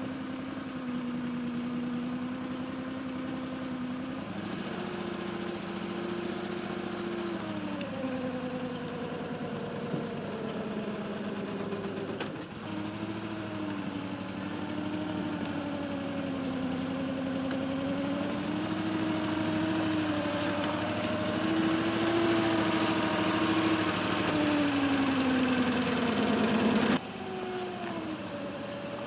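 Engine of a wheeled amphibious boat running as the boat drives itself along on its wheels. Its pitch rises and falls with engine speed and it grows louder toward the end, then drops suddenly to a quieter, lower running.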